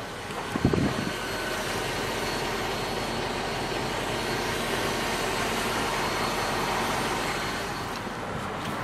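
Mercedes-Benz S450's 4.6-litre V8 idling, heard close to the rear of the car as a steady rushing exhaust sound. There is a short low bump about two thirds of a second in.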